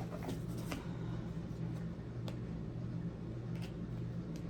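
Tarot cards handled on a table: a few soft, light taps and rustles, over a steady low hum.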